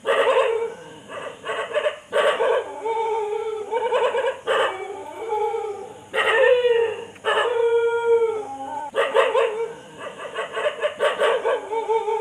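A dog whining and howling: a string of high cries, each up to about a second long, bending up and down in pitch.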